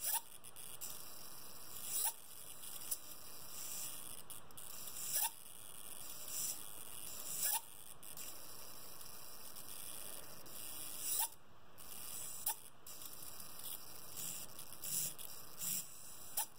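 Faulty RC helicopter servo buzzing steadily with a high hum while powered, broken every few seconds by short sharp twitches, which come more often near the end.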